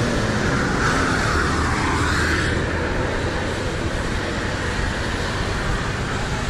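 Road traffic on a city street: cars driving past with a steady noise of engines and tyres, one vehicle swelling and fading about one to three seconds in.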